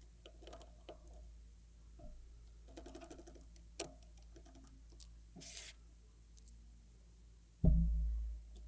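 Small scattered clicks, taps and scrapes of a precision screwdriver and fingertips working the tiny retention-bar screws on a MacBook Pro logic board. There is a sharp click about four seconds in, and near the end a sudden heavy low thump that dies away over about half a second.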